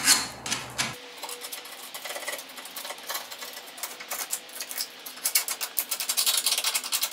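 A flathead screwdriver scraping loose rust and flaking paint off a rusty steel crossmember. It makes a quick run of scratchy strokes that grow denser and louder near the end.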